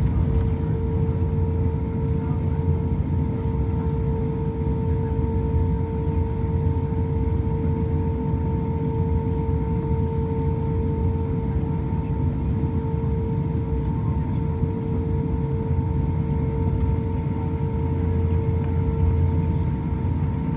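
Airbus A350 airliner running at a constant low power: a steady low rumble with a constant hum that does not rise or change.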